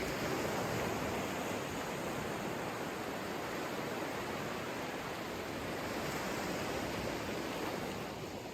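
Ocean waves washing onto a beach: a steady hiss of surf that swells a little and then fades near the end.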